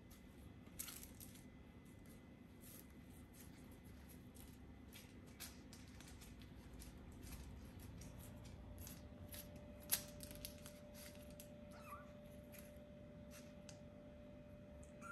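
Four-week-old kittens moving about and playing: faint scattered clicks and scratches of small paws and claws, with one sharp click about ten seconds in and a faint short squeak about twelve seconds in.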